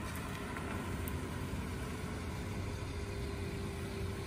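Steady car engine and road noise from a vehicle on the move, a low even rumble with a faint steady hum coming in about halfway through.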